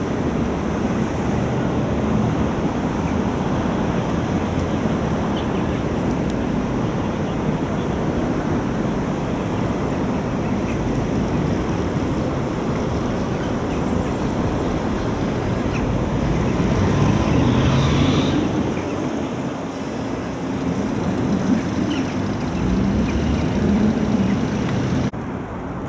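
Steady outdoor background noise, a low rumble like traffic or wind, that drops suddenly to a quieter background near the end.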